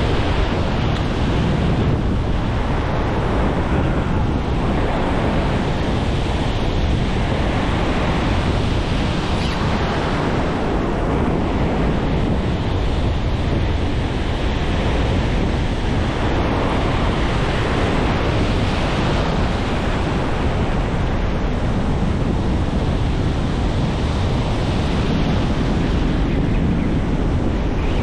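Pacific surf breaking and washing up the beach, swelling and easing every few seconds, with wind buffeting the action-camera microphone as a steady low rumble.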